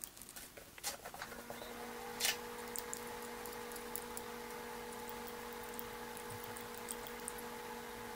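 Short clicks and scrapes of a craft knife blade cutting the silicone sealant from the edge of a Peltier thermoelectric module, loudest about two seconds in. A steady low hum comes in about a second in and continues.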